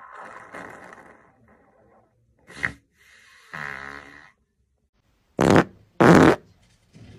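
A run of about five human farts one after another: a long breathy one at the start, a short sharp one, a buzzing one in the middle, and two short, very loud blasts near the end, the loudest of the lot.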